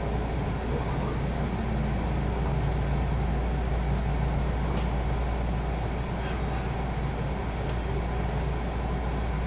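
JR West 221 series electric train heard from inside the carriage, rolling slowly into a station and coming to a stop: a steady low hum and rumble with a few faint ticks.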